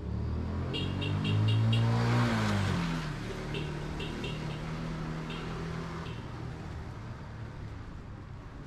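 A motor vehicle passing close by on the street. Its engine note swells and then drops in pitch as it goes past, fading to a steadier hum, with two runs of short high beeps.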